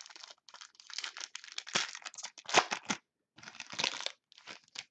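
A foil football trading-card pack being torn open and its wrapper crinkled by hand: a run of sharp crackling and tearing, loudest about halfway through, with a short pause a little after three seconds in.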